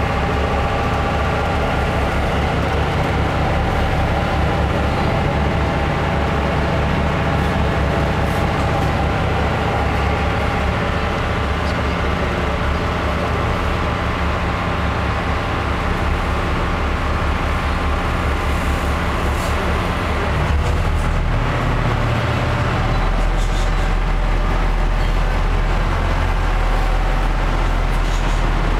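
Engines of the Sea Bass water bus running steadily, heard from on board: a loud, even drone. About two-thirds of the way through, the engine note changes and a deeper rumble comes up.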